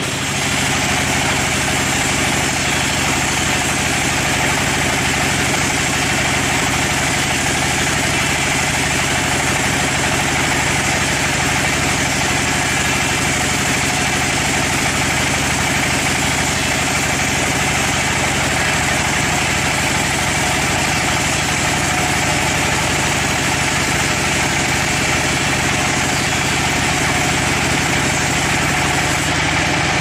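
Band sawmill running steadily, its blade cutting lengthwise through a log: a continuous machine drone mixed with sawing noise.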